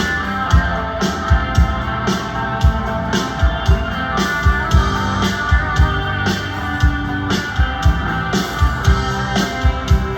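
Rock music: guitar over a steady drum beat.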